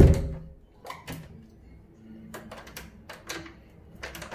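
A hotel-room door shuts with a thud at the start, followed by a string of light metallic clicks and rattles from the door's swing-bar security latch and lever handle.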